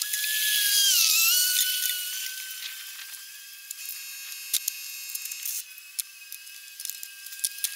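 Cordless drill-driver whining at high speed as it backs out the generator's shroud screws, its pitch dipping briefly under load about a second in, with scattered light clicks of screws and metal parts.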